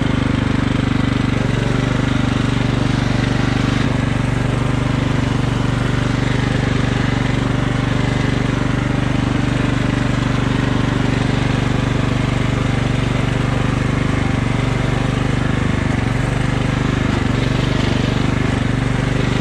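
Craftsman riding lawn mower's engine running steadily at a constant speed, with no revving.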